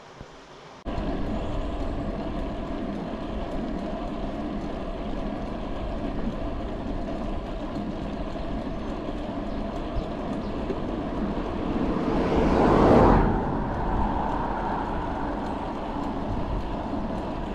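Wind rush on the handlebar camera's microphone and tyre noise from a road bike riding on asphalt, starting abruptly about a second in. About twelve seconds in, a louder rushing swell rises and fades within about a second and a half.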